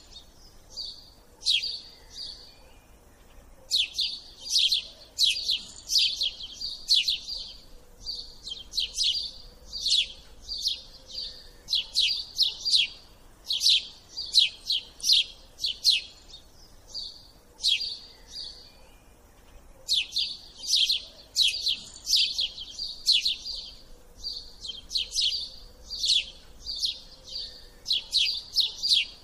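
Small birds chirping: quick runs of short, high chirps, several a second, broken by brief pauses, over and over.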